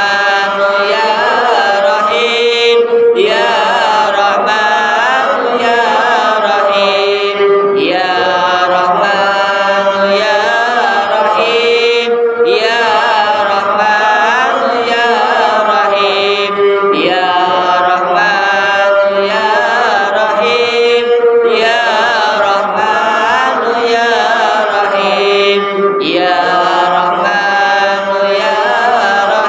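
Voices chanting an Islamic istighosah litany melodically in Arabic, in repeating phrases about every four and a half seconds with a short break for breath between them.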